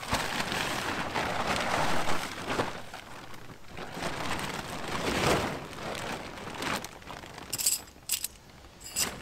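Plastic ground-cloth tarp rustling and flapping as it is shaken open and spread on the forest floor. Near the end come a few light metallic clinks as metal tent stakes are picked up.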